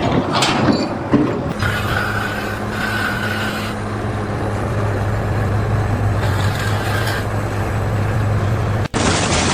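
A heavy engine running steadily with a low hum under continuous mechanical noise. It cuts off abruptly near the end into a brighter, hissier noise.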